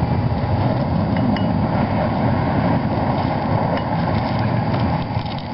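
Prototype climbing-booster winch running steadily as it lets out line under a climber on a tower, a low mechanical rumble with a few light ticks.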